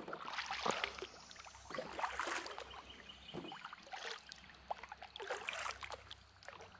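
Kayak paddle dipping into calm river water, with splashes and drips from the blade every second or two.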